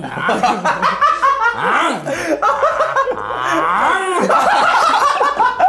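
A group of men laughing hard, several voices overlapping.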